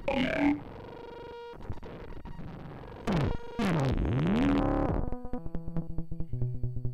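Modular synthesizer soundscape. A burst of blips opens it and is followed by a held tone. Swooping pitch glides dive and rise, then the sound breaks into rapid stuttering pulses that step between pitches.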